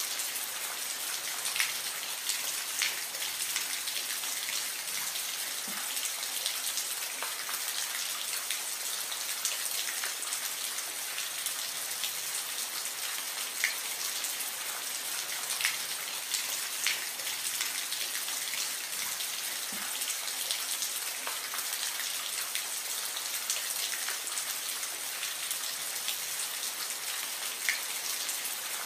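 Gentle rain: a steady, even hiss with scattered louder drops tapping at irregular intervals.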